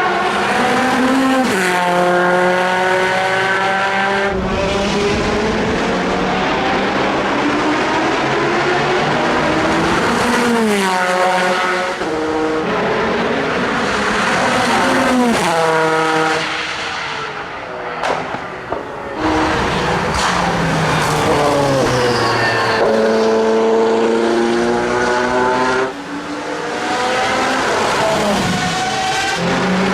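Audi R8 LMP prototype's twin-turbo V8 race engine accelerating hard through the gears, its pitch climbing and then dropping at each upshift, over and over as the car passes.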